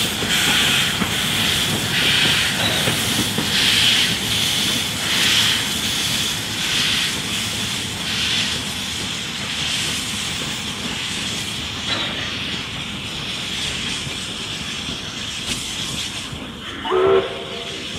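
NSWGR 32 class 4-6-0 steam locomotive 3237 running light at low speed, its exhaust chuffing slowly, about once every second and a half, over a steady hiss of steam from around the cylinders, the beats growing weaker as it moves away. A brief whistle toot near the end.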